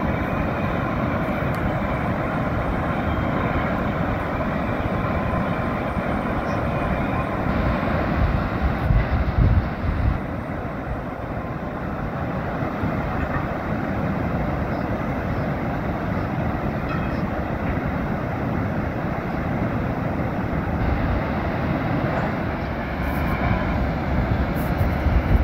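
Steady rush of river water pouring through the gates of a movable dam, a continuous noisy roar, with brief louder low rumbles about eight seconds in and again near the end.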